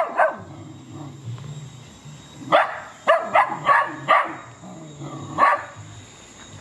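Dogs barking: a quick run of short, sharp barks starting about two and a half seconds in, then one more bark a little over a second later.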